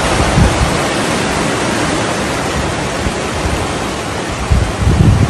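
Rushing floodwater: a loud, steady wash of noise with a few low rumbles about half a second in and again just before the end.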